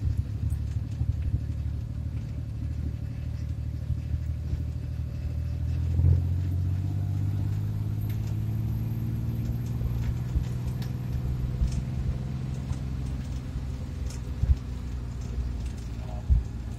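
Small van's engine running while driving, heard from inside the cab: a steady low drone, a thump about six seconds in, then the engine pitch rises for several seconds as the vehicle speeds up, with a few light knocks near the end.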